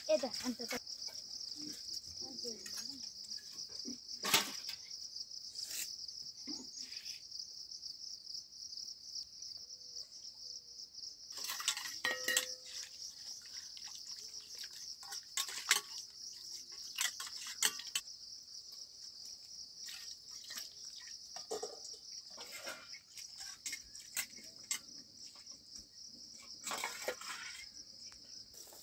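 A steady high-pitched chorus of insects, cricket-like, with scattered light clicks and knocks over it.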